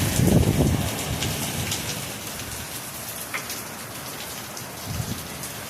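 Heavy rain pouring down, a dense steady hiss of drops hitting surfaces, a little louder in the first second or so.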